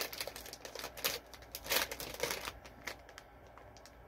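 Plastic candy bag crinkling as a gummy is picked out of it: a run of quick crackles and clicks that thins out about two and a half seconds in.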